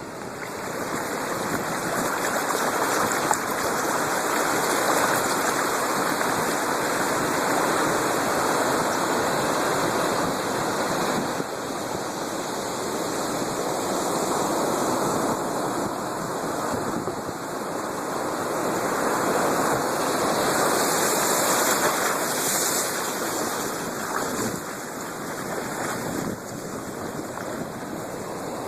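Storm surf on the Black Sea: a continuous rushing of breaking waves that swells and eases every several seconds.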